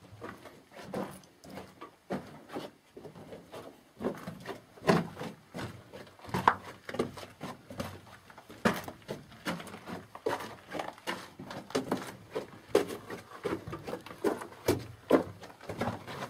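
Footsteps of people walking on a mine tunnel floor: an irregular run of steps and scuffs, about two a second. They are fainter for the first few seconds and stronger after that.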